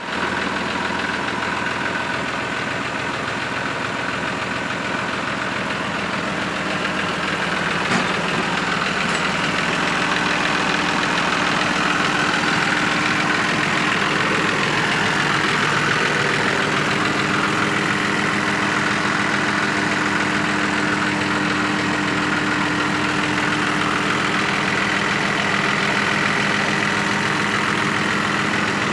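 An engine idling steadily, already running from the first moment, with one brief click about eight seconds in.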